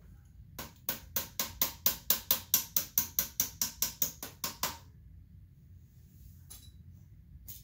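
A fast, even run of about twenty sharp clicks, roughly five a second, for about four seconds, then two single clicks, from hands working the metal parts of a die-cast scale model crawler crane.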